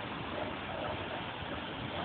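Steady, even outdoor background noise like a hiss, with no distinct knocks, tones or rhythm.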